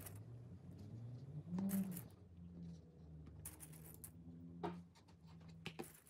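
Small plastic sewing clips clicking and rattling as they are picked from a container full of clips and snapped onto fabric edges, with light cloth rustling. The taps are scattered and irregular, the loudest cluster about two seconds in.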